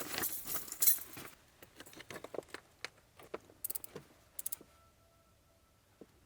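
Microspikes being pulled onto boots: rustling, then the small metal chains jangling and clicking in scattered light taps.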